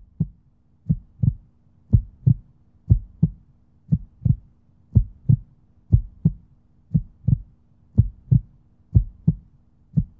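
Outro sound effect of deep paired thumps in a heartbeat rhythm, about one pair a second, over a faint steady hum.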